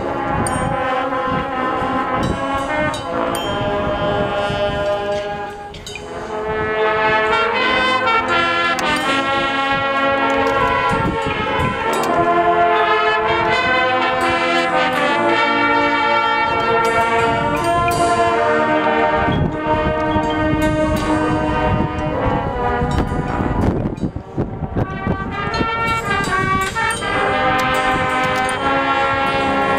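Marching band playing its field show: sustained brass chords over front-ensemble percussion such as marimbas and timpani. The music drops off briefly twice, about six seconds in and again several seconds before the end, then swells back.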